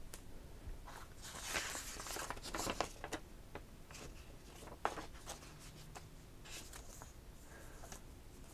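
Paper and card being handled: a folded paper leaflet rustling as it is opened, with light taps and clicks of card inserts. The rustling comes in short patches, most of it in the first three seconds, with a sharper click about five seconds in.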